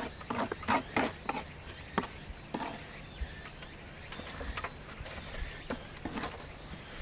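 Sharp clicks and knocks of metal lath mesh being fastened to a wall: a quick run of about six strikes in the first second and a half, then scattered single ones. A low steady rumble lies underneath.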